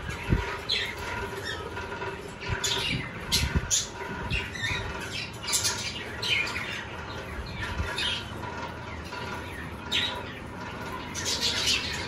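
A flock of budgerigars chattering and squawking in an aviary, many short high calls overlapping with wing flaps. A few low knocks, the loudest just after the start and more around three to four seconds in.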